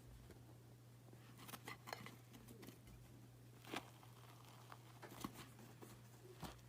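Near silence: a steady low hum with scattered faint clicks and crackles, the clearest near the middle.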